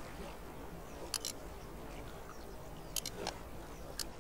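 A few small, faint clicks of a spoon against a dressing bowl, twice in quick succession about a second in and again around three seconds, as dressing is spooned onto a salad, over a low steady background hum.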